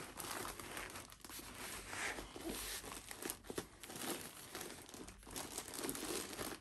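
Diamond painting canvas and its paper cover sheet rustling and crinkling as they are rolled up by hand, with irregular crackles throughout.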